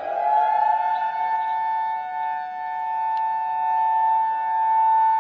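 Emergency alert siren in the style of a civil defense siren, holding a steady note of two close pitches after its wind-up; it is the attention signal of an emergency broadcast alert.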